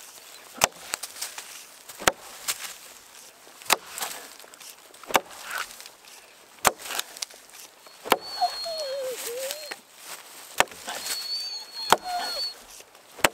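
Axe chopping into a green poplar log to cut a notch: about nine sharp blows, roughly one every second and a half.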